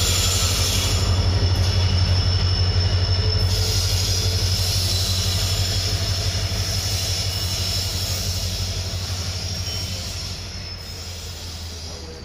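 Locomotive running along a curved track, its engine a steady low rumble under a thin, high wheel squeal from the curve. Both fade steadily as it draws away.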